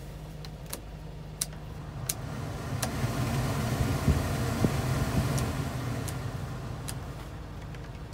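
Cab heater blower fan stepped up through its speeds and back down: the rush of air grows to a peak about halfway through, then falls away, with sharp clicks as the fan-speed dial snaps through its detents. The truck's diesel engine idles steadily underneath.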